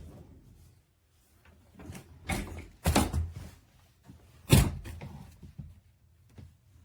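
A few separate dull knocks and thumps, the loudest about four and a half seconds in.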